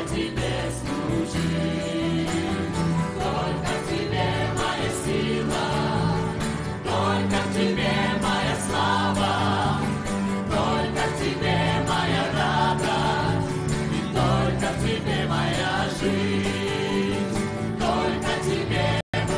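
Church choir and worship band singing a worship song in Russian, mixed voices with acoustic guitar and band accompaniment. The sound cuts out for a split second near the end.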